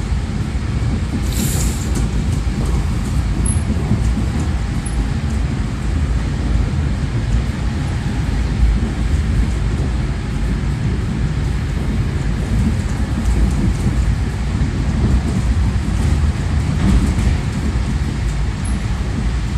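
Suburban electric train running along the track, heard from inside the carriage: a steady low rumble of wheels on rails, with a brief high hiss about a second and a half in.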